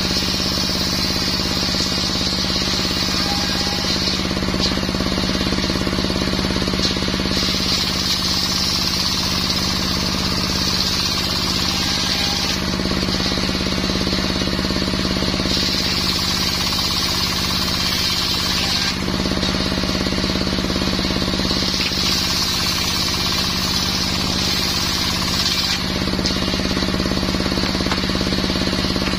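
Small petrol engine driving a circular saw blade runs continuously while the blade cuts mahogany. The sound changes every three to five seconds as the saw's load shifts through the cuts.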